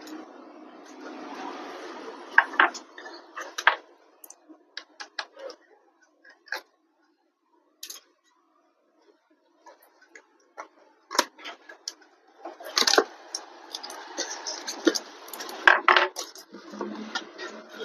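Small metal screws and hand tools clicking and clinking as they are handled and set down while a laptop is taken apart. Scattered sharp ticks come irregularly, with a quieter gap in the middle.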